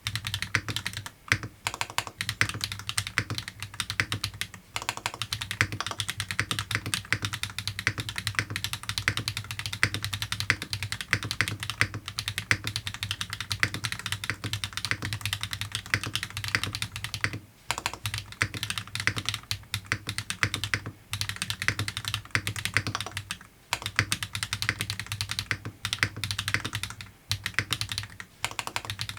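Fast, continuous typing on a Linworks Montage mechanical keyboard with HMX KD200 switches on an aluminium top-mount plate with no foam: a dense stream of keystrokes, broken by brief pauses every few seconds.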